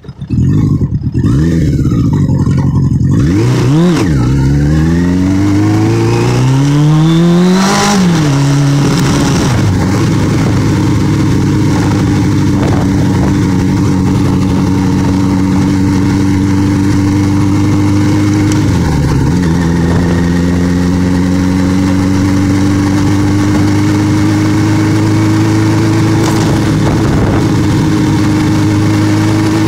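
Motorcycle engine pulling away and accelerating, its pitch climbing and dropping back at two gear changes about four and eight seconds in, then running at a steady cruising speed with a brief dip near the middle and a slow rise after it.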